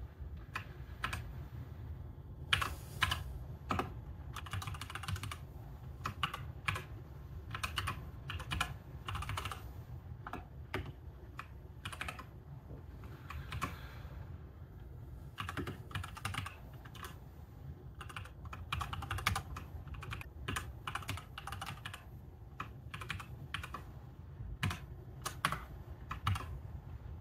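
Typing on a computer keyboard: irregular runs of keystroke clicks with short pauses, over a low steady hum.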